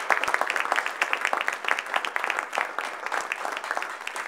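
Audience applauding: many people clapping together, gradually thinning toward the end.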